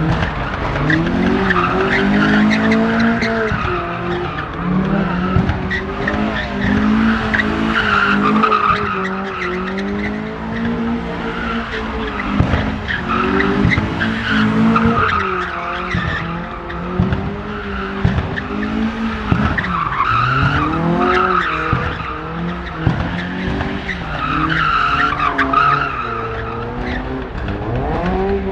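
A car drifting: its engine revs up and down again and again, with tyre squeal swelling along with each rev.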